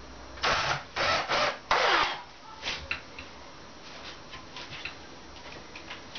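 Hand work with tools on wooden floor beams: four short, loud noisy bursts in the first two seconds, then a string of lighter clicks and taps.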